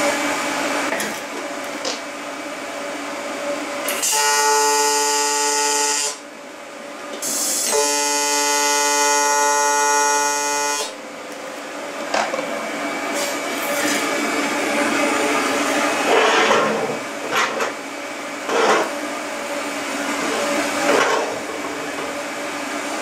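AC TIG welding arc on aluminum, buzzing at about 120 Hz AC frequency. The buzz turns louder and harsher about four seconds in, breaks off briefly, and comes back strong for about three seconds before settling to a weaker buzz with a few clicks.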